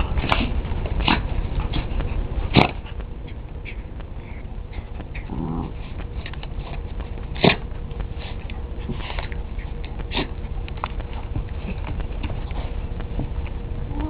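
A dog and a cat at play: a run of short, sharp sneezes and snorts, the two loudest about two and a half and seven and a half seconds in. A brief low cry comes a little past five seconds.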